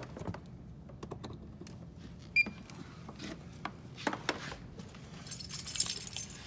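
Scattered clicks and knocks of the scan tool and its OBD cable being handled, a short electronic beep about two and a half seconds in, then a ring of car keys jangling for about a second near the end.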